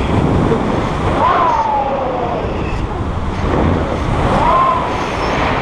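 Wind buffeting the camera microphone in paraglider flight, with two long drawn-out cries from the passenger: one falling in pitch about a second in, one rising and held near the end.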